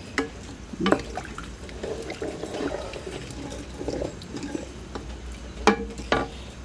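Water trickling and dripping, with a few sharp knocks of kitchen utensils or pots.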